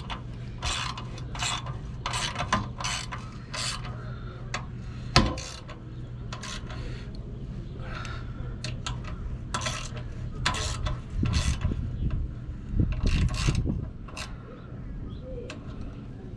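Ratchet-type hand tool clicking in quick, irregular strokes while working metal hardware, with a sharp knock about five seconds in. A steady low hum runs underneath.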